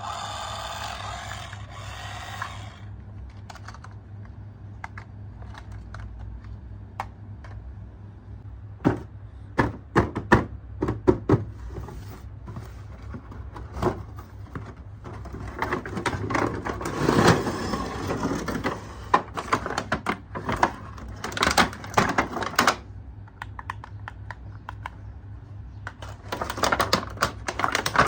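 Plastic toys and their packaging being handled: irregular sharp clicks, knocks and rattles over a steady low hum. A pitched electronic toy sound effect stops about two seconds in.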